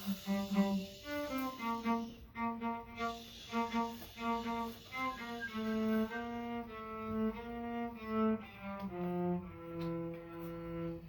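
Solo cello playing a slow melody of separate bowed notes, settling on a longer held low note near the end.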